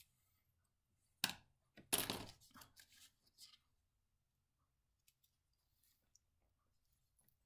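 Small hand-tool handling on a foam pad and cutting mat: a sharp tap a little over a second in, a short scraping rub about two seconds in, a few softer rubs, then only faint ticks as a wooden dowel is pressed and rolled over a thin steel photoetch rail on the foam.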